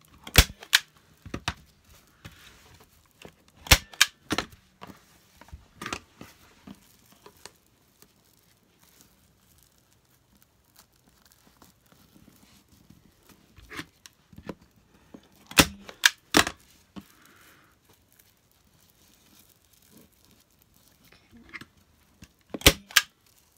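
Arrow TT21 manual staple gun firing staples through fabric into a wooden board: sharp snaps in small groups of two to four, with a long lull in the middle. Fabric rustles softly between the shots.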